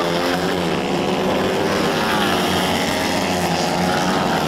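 110cc racing kart engines running at high revs, their pitch falling and rising a few times as the karts pass and brake through a corner.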